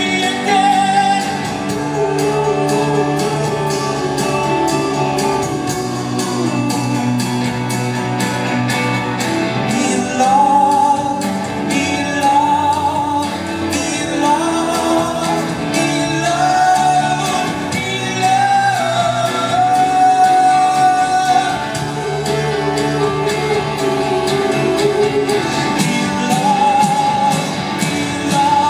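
Live rock band playing: electric guitars, bass and drums, with a sung melody over the top, heard from the crowd in a large concert hall.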